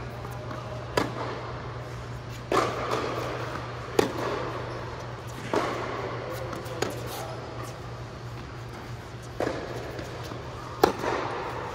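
A series of about seven sharp knocks or thuds at uneven intervals, each with a short ringing tail, over a steady low hum; the loudest comes near the end.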